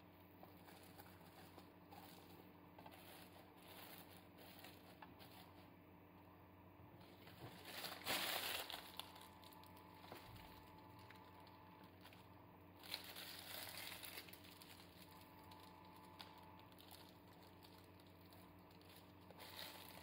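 Near silence with faint crinkling, loudest for about a second some eight seconds in and again around thirteen seconds.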